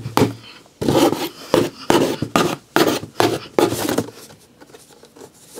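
A large knife hacking into a cardboard shipping box: a run of rough scraping, tearing strokes, about two a second, that stops about four seconds in.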